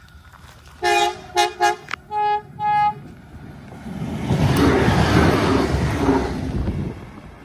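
Endeavour-class diesel railcar horn playing a 'cock-a-doodle-do' pattern of five toots about a second in: three quick two-note blasts, then two longer ones on a single note. Then two coupled Endeavour railcars pass at speed, their engine and wheel noise building to a peak near the middle and fading away.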